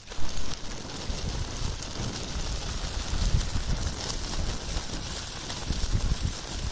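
Small wood-stick fire crackling, unripe tamarind pods roasting in its embers, with many sharp little pops over an uneven low rumble.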